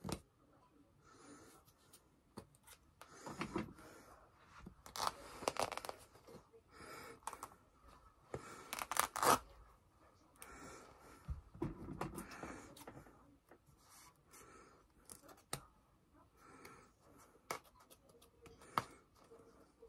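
Hoodie fabric being torn apart by hand in several irregular ripping pulls, with cloth rustling and handling in between.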